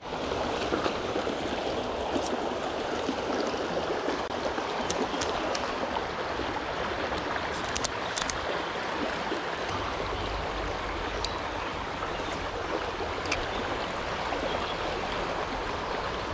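Small stream flowing, a steady rush of water, with a few faint ticks and a low rumble joining about ten seconds in.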